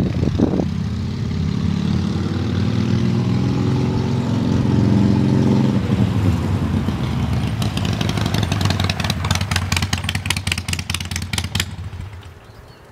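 Harley-Davidson Iron 883's air-cooled 883 cc V-twin through a Rush Performance slip-on exhaust with a 1.75-inch baffle, heard just after a drive-by and fading into the distance, its note falling slightly at first. A quick, crackling beat comes through in the second half, and the sound dies away near the end.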